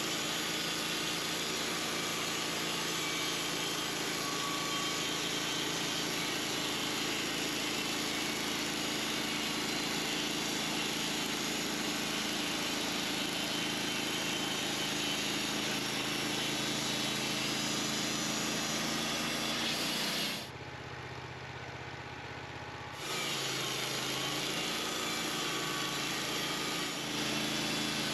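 Manual portable band sawmill running, its engine steady under load as the blade cuts the cap slab off a maple log. About two-thirds of the way through, the cutting noise drops away and the engine note changes for a couple of seconds, then the full sound returns.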